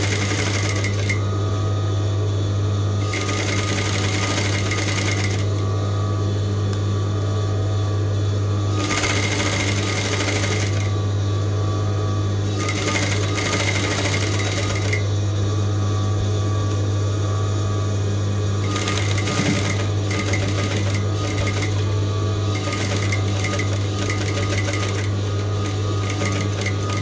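Singer 3191D200A electric sewing machine stitching a seam with a steady motor hum. Its higher-pitched rattle comes and goes in stretches of a few seconds as the sewing speeds up and eases off.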